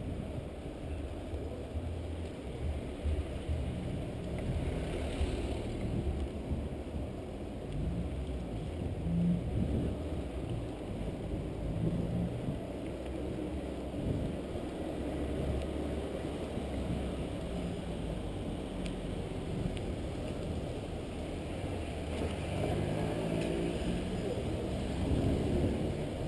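Steady low rumble of wind and road vibration on a bicycle handlebar camera's microphone while riding along a street.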